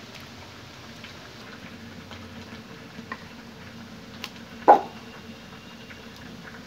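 Light clicks of a serving spoon and steel plates being handled, with one louder dull knock a little over four and a half seconds in.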